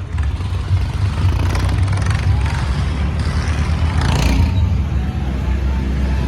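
Diesel tractor engine running with a steady, loud low rumble during a tractor tug-of-war, with crowd voices over it.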